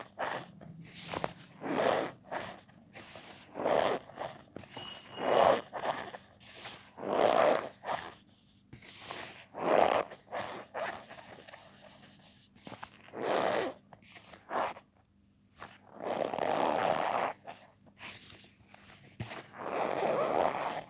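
Cornstarch powder being squeezed and pressed by hand, giving repeated squeaky crunches, about a dozen separate squeezes with short pauses between them.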